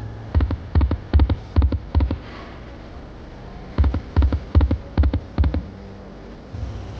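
Poker machine reels stopping one after another, each stop a low thud, in a quick run of about six. A short pause follows, then a second spin's reels stop with another run of thuds.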